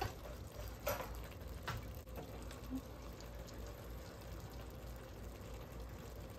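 Pot of rice, ground beef and vegetables simmering faintly on the stove, a low steady bubbling, with a few light clicks about one and two seconds in.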